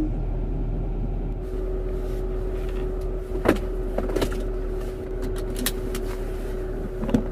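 Car interior noise while under way: a steady low engine and road rumble with a constant hum, and a few brief clicks or knocks.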